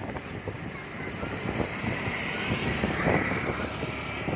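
Road and traffic noise of a moving car, a steady rushing hiss that swells for a moment about two to three seconds in.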